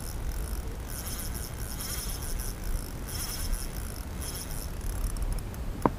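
Spinning reel's drag buzzing in several spurts as a big fish on the bent rod pulls line off the spool, over a steady low rumble.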